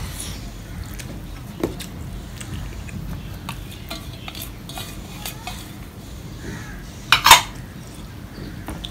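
Fingers mixing rice and dal on a stainless steel plate, with small clicks and clinks of metal. Near the end a stainless steel bowl is set down with a loud double clank onto another steel bowl.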